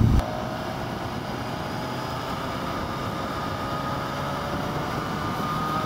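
BMW S1000XR's inline-four engine running steadily while the motorcycle is ridden, with a whine whose pitch creeps slightly upward.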